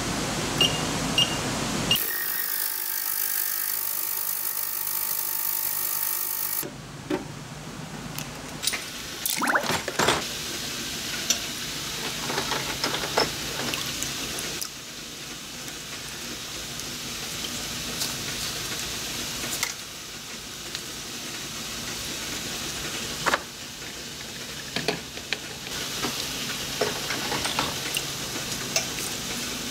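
An ultrasonic cleaner's tank hums and hisses steadily for a few seconds, then cuts out. After that, small steel parts are swished and clinked against a wire basket in a plastic bucket of water, with splashing and many short sharp clicks.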